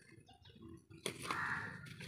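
An animal calling once, about a second in, a harsh call lasting most of a second, part of a call repeated every couple of seconds.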